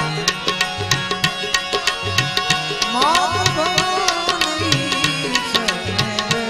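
Live Gujarati santvani devotional music: harmoniums hold sustained notes over quick, even hand-drum strokes, and a melody line slides upward about three seconds in.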